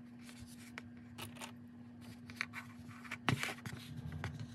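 Knit fabric being handled and rustled, with light scattered clicks and taps, the sharpest a little over three seconds in. A faint steady hum runs underneath.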